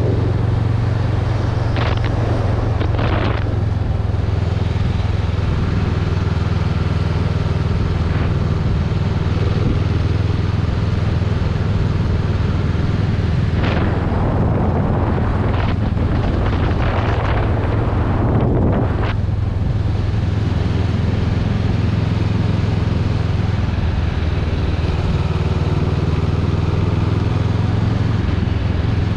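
Honda Rebel 500's 471 cc parallel-twin engine running steadily at cruising speed. Wind rushes over the microphone, in brief gusts early on and more strongly for several seconds around the middle.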